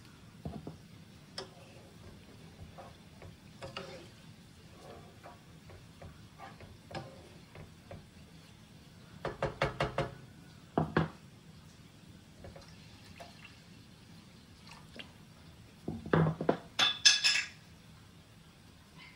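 Wooden spatula knocking and stirring in a nonstick pan with water in it: faint clicks and handling, a quick run of about six taps about nine seconds in, a single knock a second later, and a louder clatter near the end.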